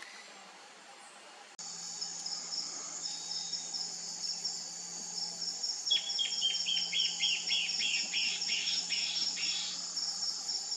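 A steady, high insect trill cuts in about a second and a half in. Over it, a Peruvian warbling antbird sings a fast series of short, falling notes for about three and a half seconds.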